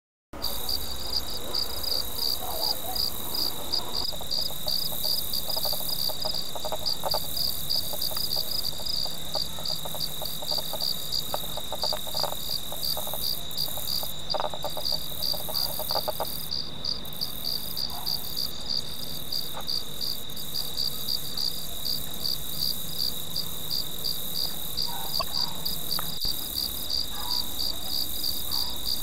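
Night chorus of crickets: a fast, even pulsing chirp over a steady high trill, with faint scattered lower calls beneath.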